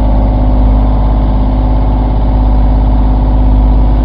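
Fishing boat's engine running steadily under way, a loud, constant low drone with a steady hum.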